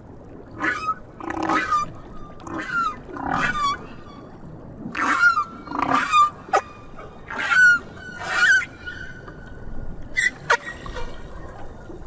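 Humpback whale song recorded underwater: a run of short calls, about one a second, some gliding up or down in pitch, with a sharp falling sweep near the end.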